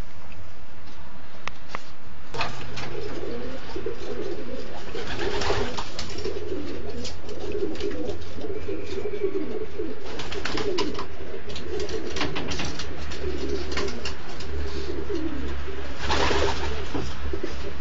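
Many racing pigeons cooing together, a continuous overlapping warble that sets in about two seconds in, with scattered sharp clicks over it.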